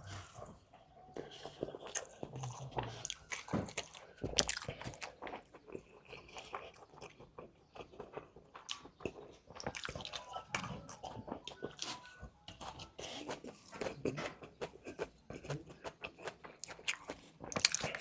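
Close-miked eating: crunching bites and chewing of food, a dense irregular run of wet clicks and crackles.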